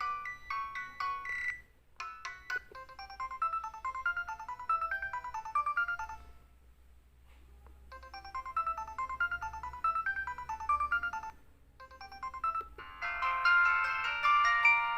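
Samsung SCH-F309 cell phone playing polyphonic ringtone melodies through its speaker. One tune ends near the start. A short melody then plays twice with a pause between, and a different, louder ringtone begins near the end.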